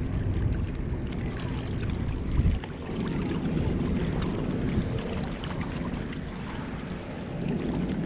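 Steady wind rumbling on the microphone, with sea water washing against the rocks, and one short bump about two and a half seconds in.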